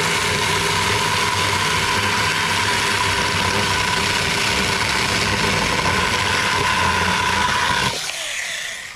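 A 6-inch, 21-volt cordless mini electric chainsaw running steadily as its chain cuts through a 2x4, going through a knot in the board. About eight seconds in, the cut finishes and the sound drops away as the saw winds down.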